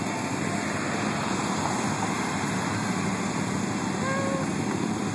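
A procession of Can-Am Spyder three-wheeled motorcycles riding past at parade pace, their Rotax V-twin engines and tyres making steady engine and road noise.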